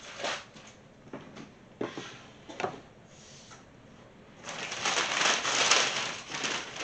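Packing paper and cardboard boxes being handled and crinkled: a few short rustles, then a longer, louder stretch of crinkling about four and a half seconds in.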